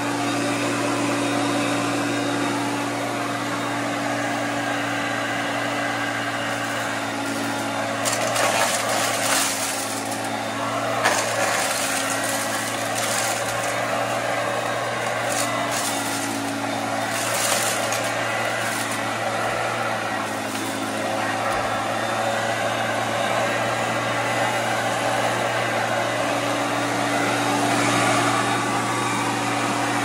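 Vintage Hoover Concept upright vacuum cleaner running with a steady hum. For about ten seconds in the middle, quick crunching and rattling cut in over it as it sucks up pecans, shells and all.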